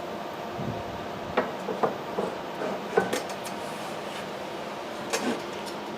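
Light metallic clinks and knocks from steel parts being handled. There are about five, spaced unevenly over several seconds, against a steady background hum.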